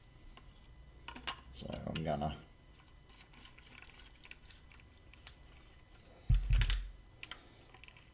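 Plastic and metal parts of a Dremel Workstation clicking and knocking as they are handled and fitted together, with a loud low thump about six seconds in.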